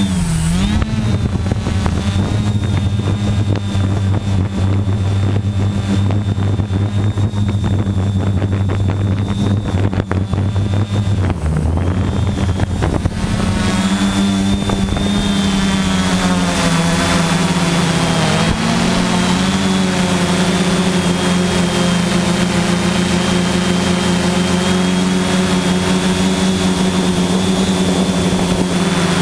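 Quadcopter's electric motors and propellers droning steadily with a high whine, heard from a camera mounted on the craft. The pitch dips briefly near the start and again about eighteen seconds in, and the drone's tone shifts about twelve seconds in.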